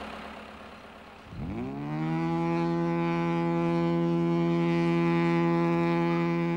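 A ship's twin trumpet air horn sounds one long blast, starting about a second in. Its pitch rises quickly as it comes on, then holds steady.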